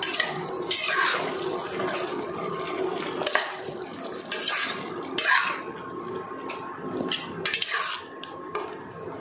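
Metal spatula scraping and stirring mutton in thick masala inside a pressure cooker pot, in irregular strokes about a second apart, with the masala sizzling and bubbling throughout. This is the kasha stage, the meat frying in its masala until the oil separates.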